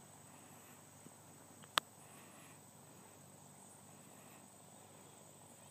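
Faint, steady high-pitched drone of insects, with one sharp click about two seconds in.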